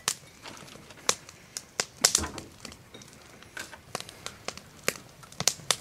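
Scattered sharp clicks and knocks as a plastic milk jug is picked up and uncapped and a measuring cup is handled, the loudest about two seconds in.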